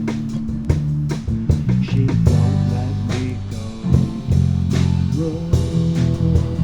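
Blues-rock band playing an instrumental passage without singing: guitar and bass guitar over drums, with a held melody note coming in about five seconds in.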